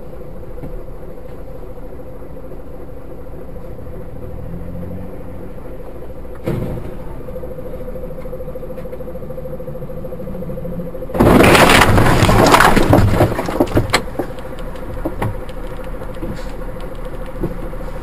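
Steady vehicle cabin hum with a faint whine, then about eleven seconds in a sudden loud crash as a truck collides with the dashcam vehicle, with clattering and crunching for about two seconds and a few scattered knocks after.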